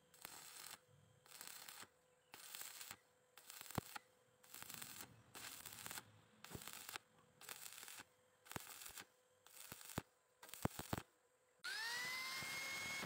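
Stick welding arc crackling and hissing in short bursts, about one every second, as the electrode is struck and broken off in a stitch pattern along a laid-in filler rod. Near the end an angle grinder spins up with a rising whine that levels off into a steady run.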